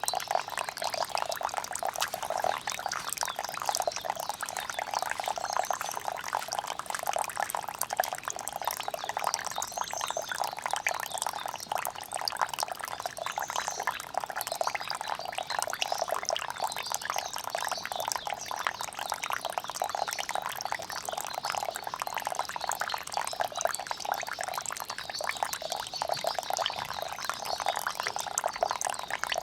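Rainwater pouring and splashing steadily, a dense, unbroken run of small splashes.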